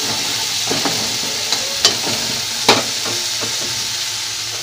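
Chopped onions and tomatoes sizzling steadily in hot oil in a kadhai while a spatula stirs them, knocking sharply against the pan a few times, loudest twice in the middle. The tomatoes are being fried down until they soften.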